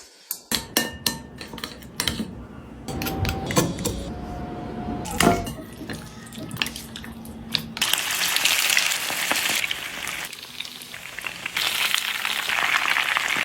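Kitchen clatter of dishes, pans and utensils, with knocks and clinks, then a steady hiss over the last five seconds or so.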